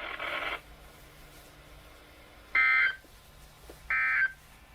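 Two short bursts of NOAA Weather Radio SAME end-of-message data tone, a buzzy digital warble, the first about two and a half seconds in and the second about a second later. They mark the close of the weekly test broadcast.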